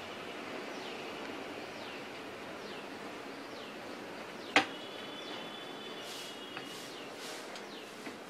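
A single sharp tick of glass about halfway through, as a wine bottle is heated along its score line, typical of the glass beginning to crack. It sits over a steady background hiss, with a bird's short falling chirps repeating about once a second.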